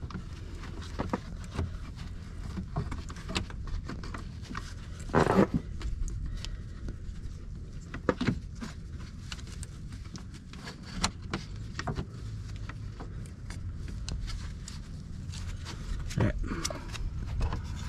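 Small clicks and scrapes of a pick tool and metal line fitting as a new O-ring is worked onto a BMW E46 transmission cooler fitting, over a low steady background rumble. A short louder noise stands out about five seconds in, with smaller ones near eight seconds and near the end.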